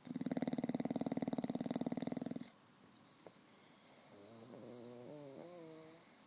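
A sleeping bulldog snoring: one loud, rattling snore lasting about two and a half seconds, then, after a short pause, a softer whistling snore that rises in pitch at its end.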